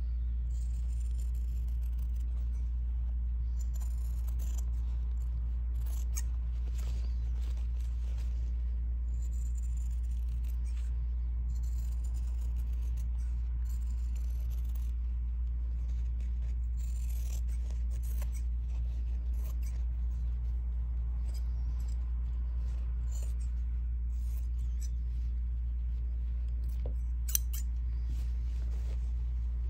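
Sewing scissors snipping through layered, stitched fabric in a series of short crisp cuts, trimming around an embroidered piece, over a steady low hum. One sharper click near the end.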